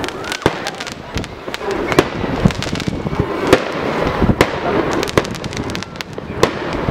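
Fireworks going off: irregular sharp bangs and pops, with a quick run of crackling pops about five seconds in.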